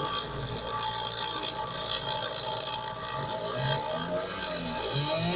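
Small printer DC motor spinning a teardrop Dremel cutter on a homemade mini CNC router, a steady whine as it engraves into wood. Short low hums that change pitch come and go from the router's stepper motors as the axes move.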